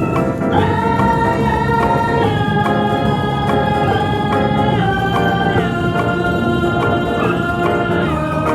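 Background music: slow held organ chords, changing every second or two.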